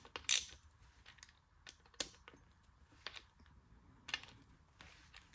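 Hand ratchet clicking in scattered single ticks as a connecting-rod cap bolt on a Gen 3 LS V8 is turned through its torque-to-angle pass. The clicks are irregular, with a handful spread across the few seconds.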